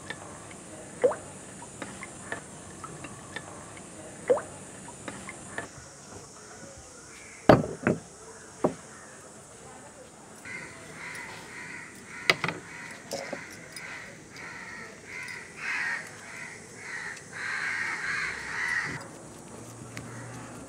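Crows cawing repeatedly through the second half. Earlier come a few sharp clicks and knocks, the loudest a pair about halfway in.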